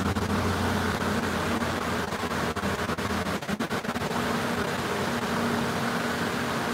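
Turbocharged Perodua Myvi 1.5's four-cylinder engine running at steady revs, with a short dip about three and a half seconds in, while being tuned.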